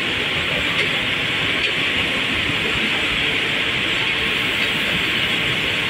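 Steady machinery noise at a loading site: an even rushing hiss over a low rumble, unbroken and unchanging.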